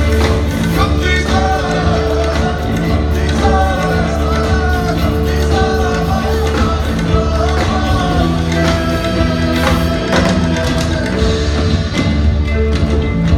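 Live band music in a hall: a loud, heavy bass and drum hits under a long held note and a bending melody line.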